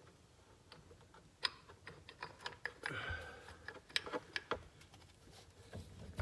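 Light metal clicks and taps as the two halves of a Peerless 100 differential housing are pressed together over the spider gears and the unit is handled on its axle shafts, with a short scrape about three seconds in; the sharpest clicks come about one and a half and four seconds in.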